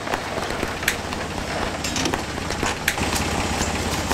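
Toyota Land Cruiser engine idling with a steady low rumble, overlaid by a series of sharp clicks and clanks from a steel pipe farm gate being handled.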